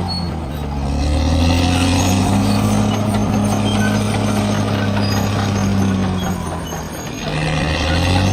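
Bulldozer's diesel engine running hard, with its pitch and loudness dropping briefly twice, about half a second in and again near the end, before picking back up as the load changes.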